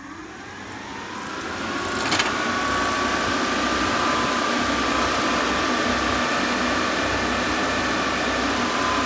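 Electric radiator cooling fans spinning up to speed over about two seconds, their pitch rising, then running steadily with an even rush of air and a steady motor whine. They are powered straight from the battery, now wired with the correct polarity.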